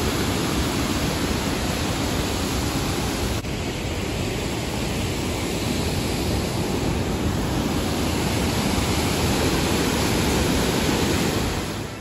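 Steady, loud rushing of a large waterfall in heavy flow, an even wash of falling water with nothing else standing out.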